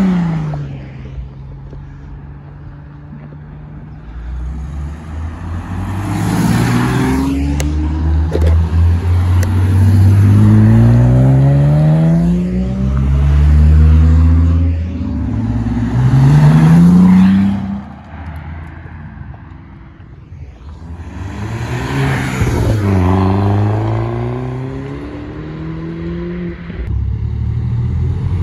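A procession of cars driving off one after another, each pulling away with its engine note rising and dropping back at gear changes, with a Mercedes-Benz SL roadster leaving at the start and a modified Honda CR-Z passing about halfway through. The loudest passes come in the middle.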